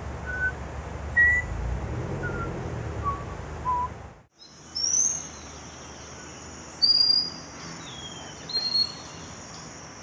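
A person whistles five short pure notes, mostly stepping down in pitch, in imitation of the wren's song. After a cut, a scaly-breasted wren sings single long, pure high whistles, each held under a second and spaced a second or two apart, at changing pitches.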